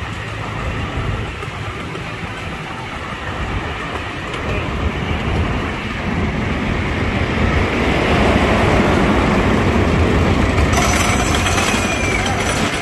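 Miniature train rolling along its track, a steady rumble of wheels on rail. About eight seconds in it grows louder, and a higher hiss joins near the end.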